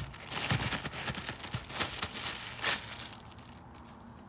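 Handling noise from unboxing: crinkling, rustling packaging with small clicks and knocks, settling down to quiet about three seconds in.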